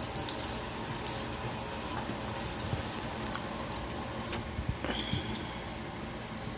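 Light metal jingling and clicking in short, scattered bouts as Cavalier King Charles spaniel puppies play.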